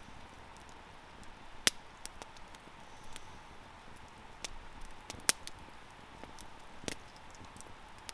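Small wood campfire crackling over a steady low hiss, with scattered sharp pops, three of them much louder than the rest.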